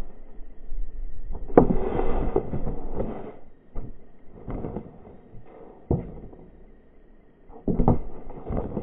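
Thuds and slaps of a trampboard and rider landing on a trampoline mat: several irregular impacts, the loudest about a second and a half in and again near the end.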